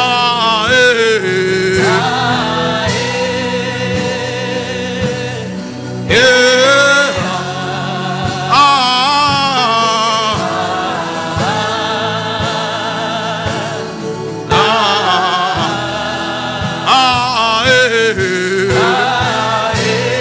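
Gospel-style singing in long, wavering, ornamented phrases over a backing of held chords and light percussion.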